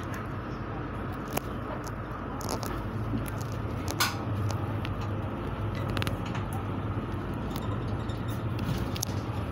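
City bus heard from inside its cabin while driving: a steady low engine hum that grows a little louder a few seconds in, with a few sharp clicks and rattles from the bus interior.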